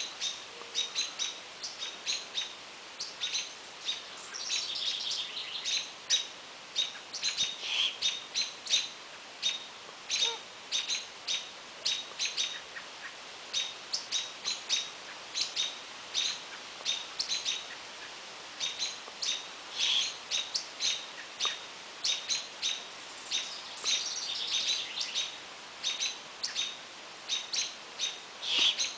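Small birds chirping steadily, many short high calls following one another every fraction of a second, with a few longer, rougher stretches.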